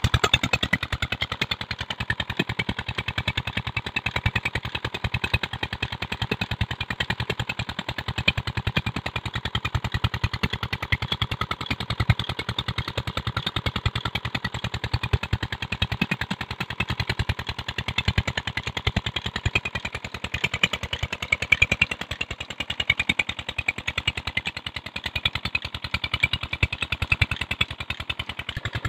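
Small Petter diesel engine running steadily, driving a tube well pump, its exhaust beating out a rapid, even thump. Water splashes from the pump's outlet pipe into the channel underneath.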